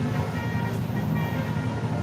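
A bus engine running with a steady low rumble, with short faint high-pitched tones over it.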